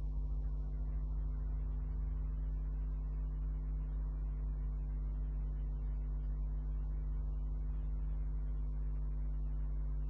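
Steady electrical mains hum, a constant low drone with a stack of evenly spaced tones above it.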